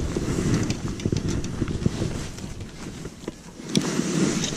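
Wind and jacket rustle on a chest-worn camera's microphone, with scattered small clicks and knocks from fishing rods and reels being handled in a small boat. The noise dips briefly and comes back louder near the end.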